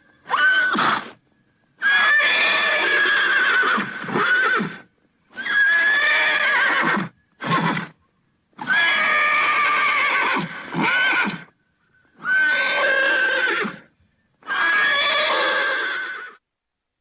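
Horse whinnying again and again: a series of neighs, each one to three seconds long with a wavering pitch, separated by short silences.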